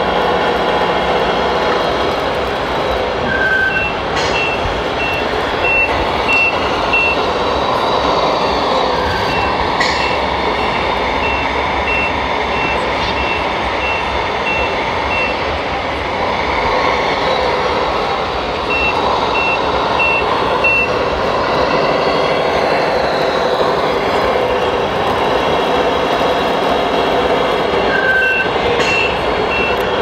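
Speaker of a radio-controlled truck's sound module playing a steady diesel-engine sound. A reversing beeper sounds over it in several runs of about two beeps a second.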